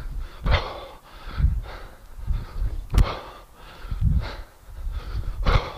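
A man breathing hard, with forceful exhalations about once a second in rhythm with repeated one-handed kettlebell cleans. A single sharp click about three seconds in.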